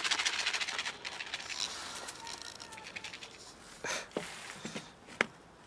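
A zip pulled open in a rapid run of ticks at the start, followed by rummaging. From about four seconds in come several sharp plastic clicks as the latches of a snap-lock plastic food container are flipped open.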